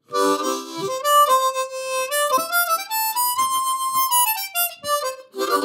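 Diatonic blues harmonica played with both hands cupped around it as a sound box: a short melody of several notes at once, climbing in steps to a long held note, then stepping back down.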